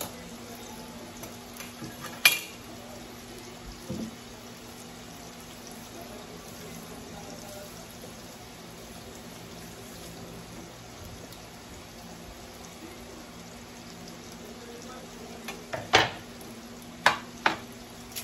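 Kitchen utensils knocking on a countertop and wooden cutting board: one sharp clack about two seconds in and a quick run of three near the end, over a steady low hum.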